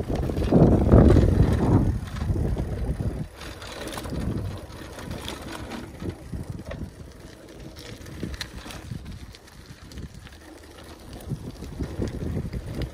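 Riding noise from a bicycle on an unpaved path, picked up by a phone mounted on the handlebars. Wind buffets the microphone loudly for the first couple of seconds, then settles into a lower rush with scattered small clicks and rattles from the bike.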